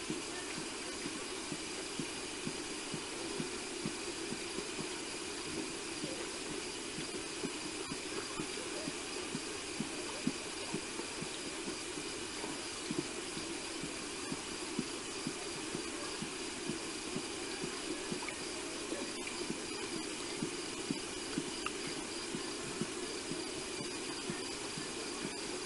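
Lion lapping water, a soft wet knock repeating about once a second, over a steady high background hum.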